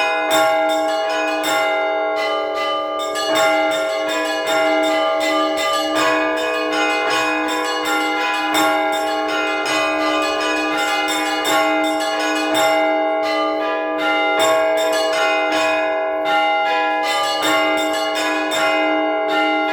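Orthodox church bells rung by hand in a continuous peal calling to the evening service: rapid strikes several times a second from the smaller bells over a steady, unbroken ringing from the bells that carry on sounding.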